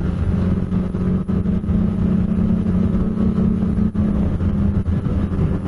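Snowmobile engine running steadily at cruising speed along a trail, a constant low engine note.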